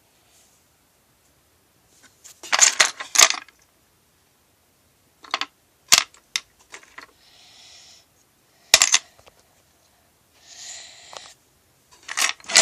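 Small plastic Lego pieces clicking and clattering as they are handled: a quick cluster of clicks, then a few single sharp clicks, with two short rustling, sliding sounds in between.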